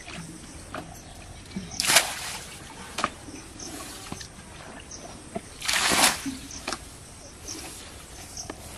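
Water splashing as it is thrown from a plastic basin while bailing a shallow ditch pool, twice, about two seconds in and again about six seconds in.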